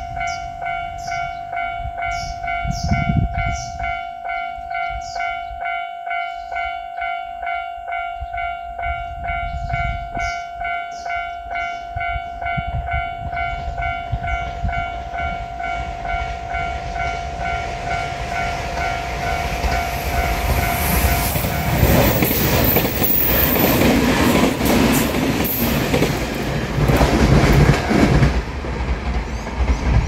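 Japanese level-crossing warning bell ringing its steady, evenly pulsing electronic clang with the barriers down. From about eighteen seconds in, a JR Shikoku 8000 series limited-express electric train passes at speed with a loud rushing and wheel clatter that drowns the bell, which stops about twenty-two seconds in.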